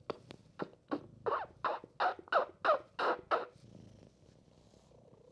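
Rapid series of squeaky kisses pressed into a kitten's fur, about three a second, each a short falling squeak, stopping about three and a half seconds in.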